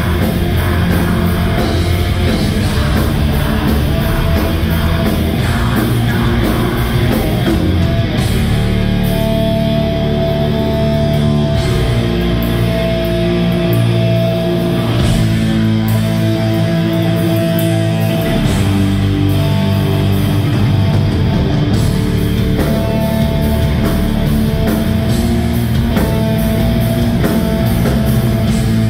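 Heavy metal band playing live and loud: distorted guitars, bass and drums with singing. About a third of the way in, a sustained melodic lead line starts riding on top.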